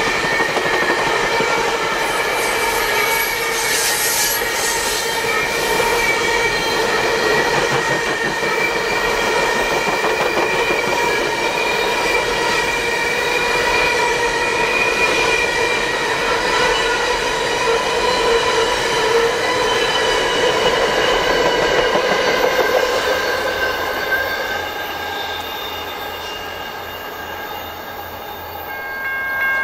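Budd-built stainless-steel passenger cars of VIA Rail's Canadian rolling past close by, their wheels squealing in several steady high tones over the noise of the train. The sound drops away over the last few seconds.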